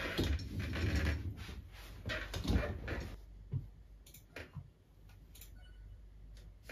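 Fabric rustling and chair creaks as someone settles into a desk chair, then a few separate clicks of a computer mouse.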